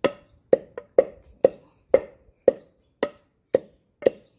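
Wooden pestle pounding dried eggshells in a mortar, a steady rhythm of sharp knocks about two a second. The shells are being crushed to a fine powder.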